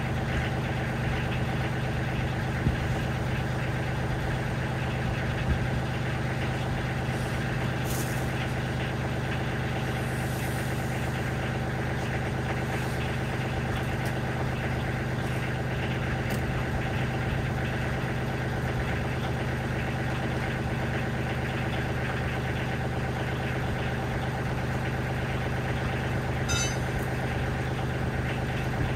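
Kioti CK30 compact tractor's diesel engine idling steadily, with a couple of short knocks a few seconds in.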